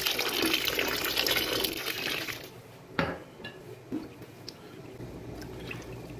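Rice poured into a large aluminium pot of broth, a splashing, pouring hiss for about two and a half seconds. Then a metal ladle stirs in the pot, with a sharp knock about three seconds in and a smaller one a second later.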